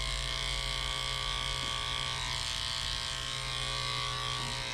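Electric pet grooming clippers running with a steady buzz as they shave a puppy's fur.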